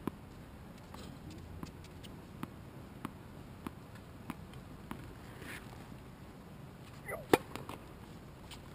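Tennis ball bounced again and again on a hard court, about once every 0.6 seconds. Near the end comes a short vocal grunt and one loud sharp crack of a racket striking the ball.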